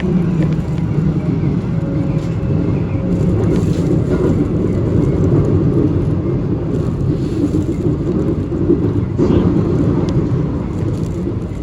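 Keikyu electric train running, heard from inside the passenger car: a steady rumble with a few short clatters from the wheels and track.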